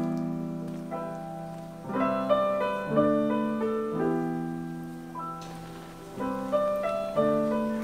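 Solo piano background music, notes and chords struck about once a second and left to fade.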